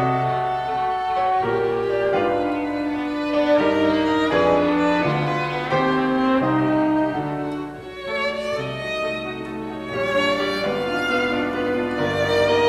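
Live chamber trio of violin, French horn and piano playing a slow classical piece together, held notes changing every half second to a second. There is a brief dip in loudness about two-thirds of the way through.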